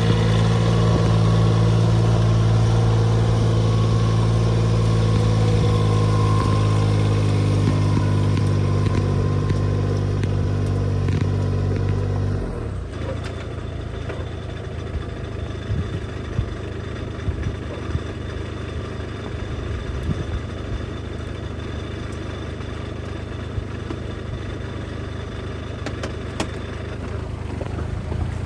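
Yanmar ten-row rice transplanter running steadily with a loud engine note. About twelve seconds in, the sound drops suddenly to a quieter engine with scattered clicks and clatter from the machine as it works through the flooded paddy.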